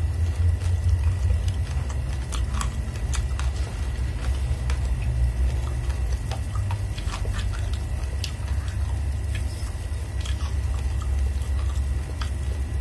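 Uncooked red rice grains crunching as they are chewed, heard as scattered small clicks and crackles, with a metal spoon scooping through the dry rice. A steady low hum runs underneath.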